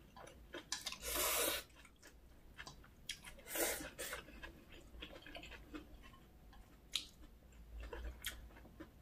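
Close-miked eating: chewing of spicy whelk noodles with many small wet mouth clicks. Two louder half-second noisy sounds come about a second in and again near the middle.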